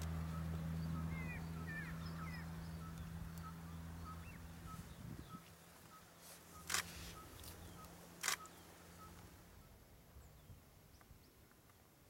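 Outdoor bush ambience: a low steady hum that fades away over the first half, a bird's short high note repeated about two to three times a second, and a few quick chirps near the start. About halfway through come two sharp knocks, a second and a half apart, from the stone being handled at the burrow.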